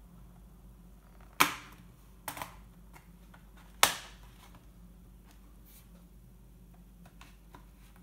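Plastic retaining clips of an ASUS A541U laptop's top case snapping loose as the case is pried open with a plastic tool: three sharp snaps in the first four seconds, then a few faint clicks.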